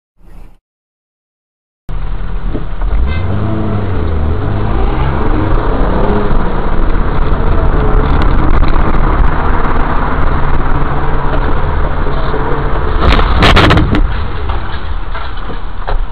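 A car's engine and road noise, starting suddenly about two seconds in. The engine pitch rises and falls as the car drives. A short, loud noisy burst comes near the end.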